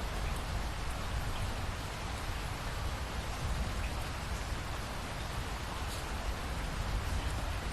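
Steady rain falling, with a few faint drop ticks and a low rumble underneath.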